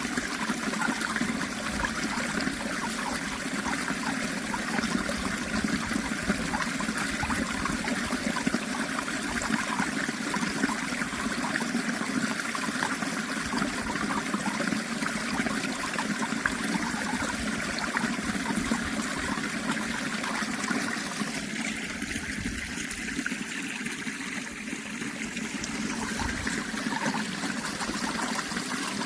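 Running water trickling and flowing steadily.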